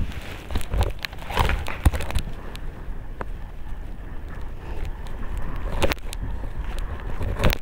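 Wind buffeting the microphone as someone wades through knee-deep sea water, with the swish and splash of the legs moving through it and a few sharper splashes now and then.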